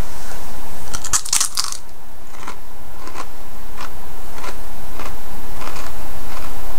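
A Ruffles potato chip bitten with a sharp crunch about a second in, then chewed with a steady run of smaller crunches, a little under two a second.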